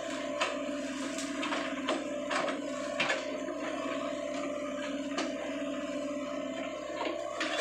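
Sany SY55C mini excavator running steadily with a constant whine while it digs and lifts wet mud, with several sharp knocks from the bucket and arm at irregular moments.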